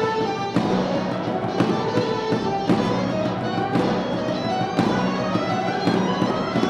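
Wind band playing a Christmas song: sustained brass and woodwind chords over a steady percussion beat.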